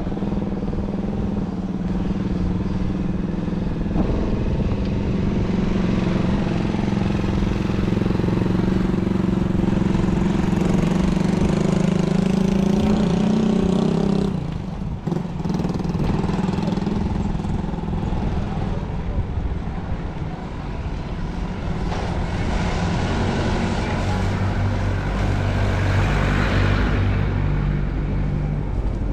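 Engine hum of passing motor vehicles: one steady engine drone cuts off about halfway through, and a lower-pitched engine comes in near the end.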